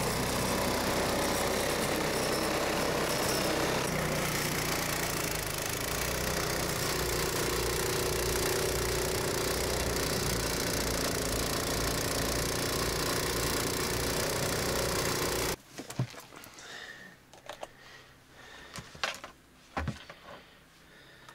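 Petrol snowblower engine running steadily under load as it clears and throws snow, ending abruptly about fifteen seconds in. After that, a quiet room with a few scattered knocks and clicks.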